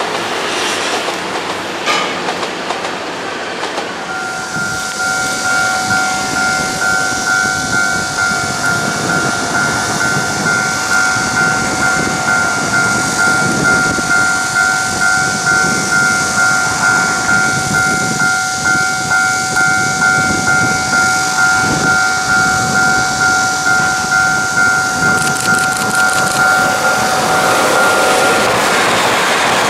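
A TEMU2000 Puyuma tilting electric train running past, its wheels clattering over the rails. From about four seconds in, a steady ringing tone pulses about one and a half times a second and stops shortly before the end.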